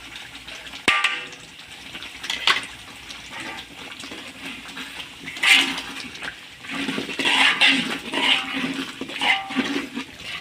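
A spatula stirring a thick sambal sauce cooking in a pan, with wet, liquid stirring sounds and a few sharp scrapes and knocks against the pan. The sambal is cooked down to the stage where the oil separates out.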